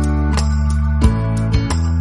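Background song playing: sustained bass and chord notes with a light beat ticking about three times a second, with guitar.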